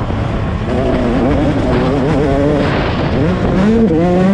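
2021 Yamaha YZ125's two-stroke single-cylinder engine revving hard under racing throttle, its pitch rising and falling, with a drop and then a quick climb in pitch about three seconds in.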